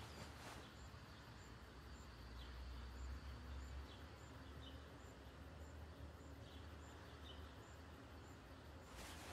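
Near silence: faint ambience with a low hum, soft high ticks about twice a second and a few faint chirps.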